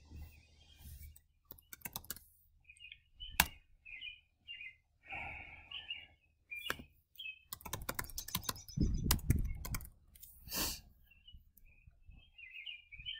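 Mouse clicks and a short burst of typing on a computer keyboard in the middle, with a small bird chirping over and over in the background.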